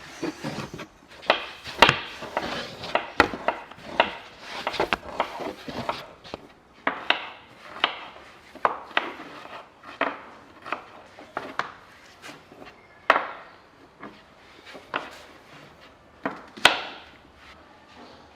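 Irregular sharp knocks and taps, roughly one or two a second, some trailing into a short scrape, like hard objects striking wood.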